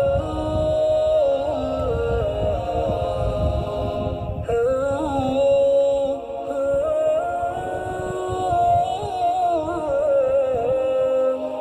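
Background music: an a cappella vocal track, a voice humming long held notes that waver and glide, with a low rumble underneath.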